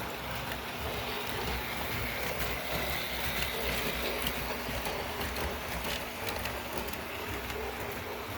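Electric toy train set running slowly on its track: a steady motor and gear hum with light, irregular clicks from the wheels and moving parts, set at low speed.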